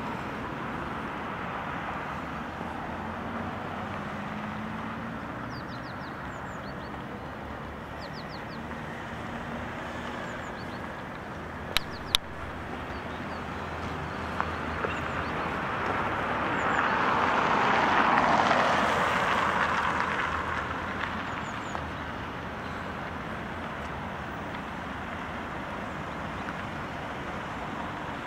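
Steady street traffic hum, with a car passing that swells to its loudest about two-thirds of the way through and then fades. Two sharp clicks near the middle.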